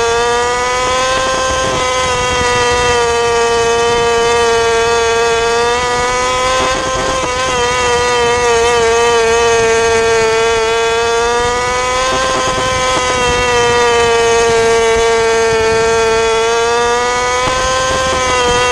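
A 600cc micro sprint car's motorcycle engine running hard at high revs, heard from the cockpit. Its pitch eases down slightly and climbs back every few seconds through the laps.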